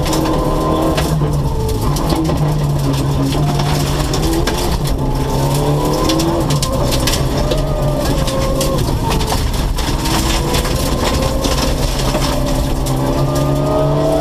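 Rally car engine heard from inside the cabin, revving up and falling back repeatedly as the car accelerates and shifts along a gravel stage. Gravel and stones strike the underbody as a scatter of sharp clicks.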